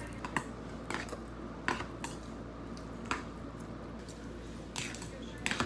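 Cutlery clinking against dishes: scattered sharp taps, about one a second, over a low steady background hum.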